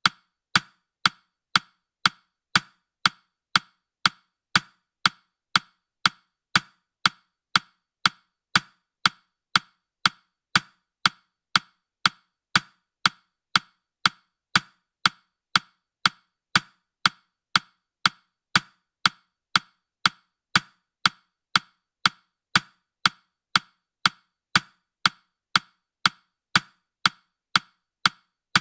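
Countdown timer ticking sound effect: short, woody clicks at an even pace of about two a second.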